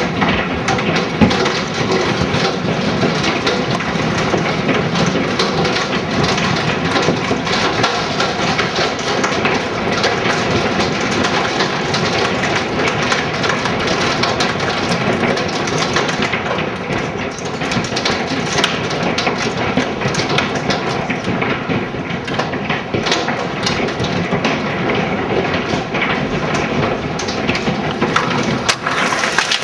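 Large hail, near golf-ball size, pelting down in a loud, dense, steady clatter of countless hailstone impacts.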